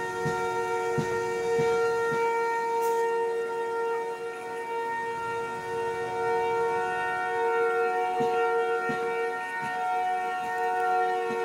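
American Signal (ASC) Tempest outdoor tornado warning sirens sounding a steady wail on two pitches, swelling and fading slightly in loudness. Short low thumps of wind on the microphone can be heard under it.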